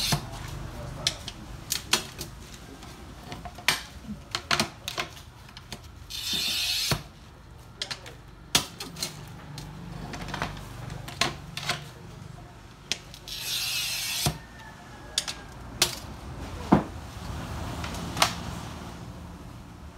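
Glass cutter scoring clear sheet glass along a straightedge: two short, high, scratchy hisses about six and thirteen seconds in. Around them come many sharp clicks and taps as the glass and the straightedge are handled.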